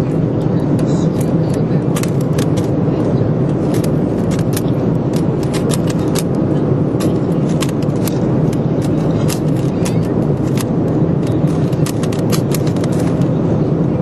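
Steady drone of an airliner cabin in flight, over the rapid, irregular clicking of a Rubik's Cube being turned fast in a speedsolve. The clicks thin out near the end.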